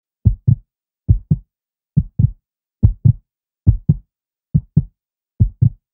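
Heartbeat sound: a steady lub-dub, each beat a pair of short, deep thumps, seven beats at about seventy a minute.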